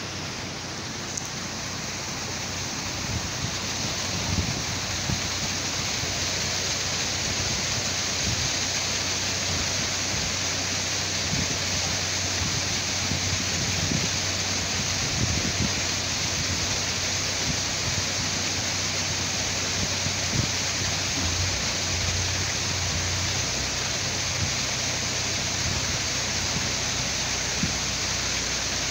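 Water rushing into a deep canal lock through the opened sluices as the lock fills: a steady rushing that swells over the first few seconds and then holds.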